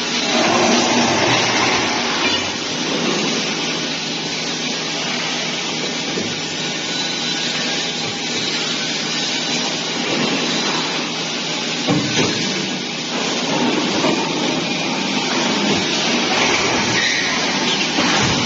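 Spiral pipe welding machine running in a workshop: a steady loud hiss with a low hum underneath, and a single knock about twelve seconds in.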